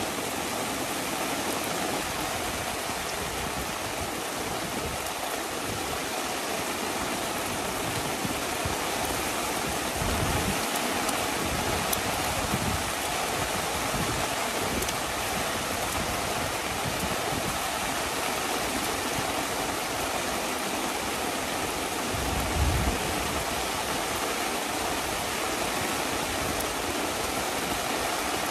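Heavy rain falling steadily, an even hiss. Brief low thumps come about ten seconds in and again, loudest, about twenty-three seconds in.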